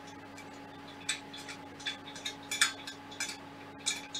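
Irregular light metallic clicks and clinks, about seven over three seconds starting about a second in, as small metal hardware is handled against the aluminium extrusions of a 3D-printer frame during assembly. A faint steady hum runs underneath.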